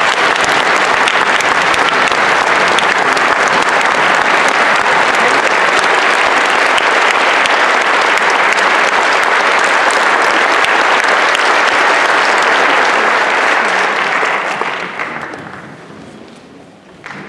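Audience applauding steadily, then dying away about three-quarters of the way through.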